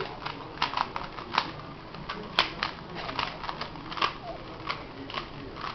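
Rubik's Cube being turned fast during a speedsolve: irregular plastic clicks and clacks of the layers snapping round, a few per second.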